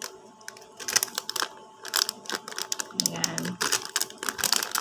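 Plastic packaging pouch crinkling and crackling as it is handled and opened: a rapid, irregular run of small crackles, with one short spoken word about three seconds in.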